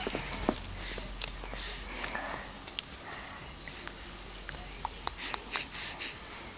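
Rapid, repeated sniffing: short breathy puffs with small clicks in between.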